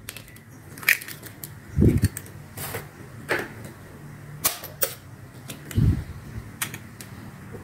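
Two chicken eggs cracked with a knife over a plastic blender jar: a series of sharp taps and shell cracks, with two dull thuds about two seconds in and again near the end.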